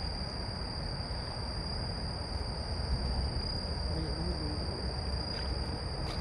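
A steady, high-pitched insect note, typical of a cricket, over a low rumble of outdoor noise; a faint distant voice about four seconds in.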